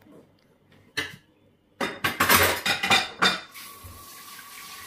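Dishes, plates and cutlery clinking and clattering as they are cleared and stacked, with one sharp knock about a second in and a dense burst of clatter in the middle. A steady hiss takes over near the end.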